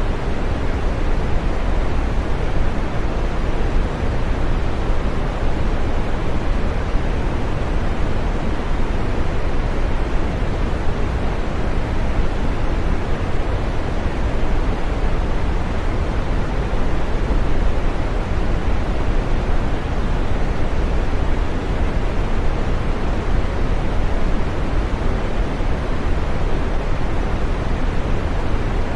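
Steady green noise: an even, unbroken hiss, fuller in the low and middle range and fading toward the top, with no change throughout.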